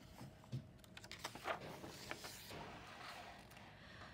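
A picture book's page being turned by hand: faint paper rustling and a swish with a few light taps.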